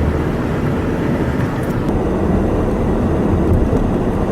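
Steady low rumble of a car driving, heard from inside the car: engine and road noise.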